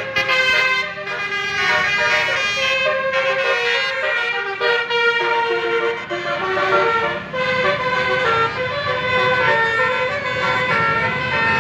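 A bus's Basuri telolet horn, a set of musical air horns, playing a tune: several tones sound together and step from note to note throughout.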